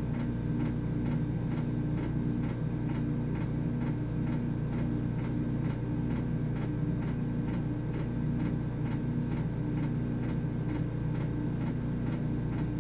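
Duramax portable generator running with a steady low hum, over which a sharp tick repeats about twice a second. The generator keeps running as the manual-start run timer reaches zero: the automatic stop has not worked.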